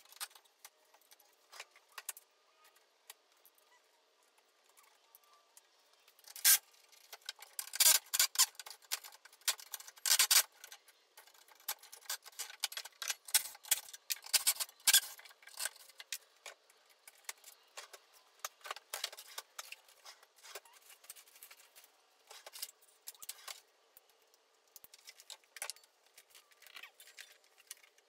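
Irregular clicks, clinks and knocks of hand tools and hardware being handled at a wooden workbench, with several sharper knocks scattered through and no power tool running.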